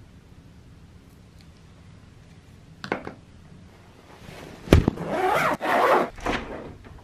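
A soft fabric bag is set down with a sharp thump, then its zipper is pulled along in several quick rasping strokes.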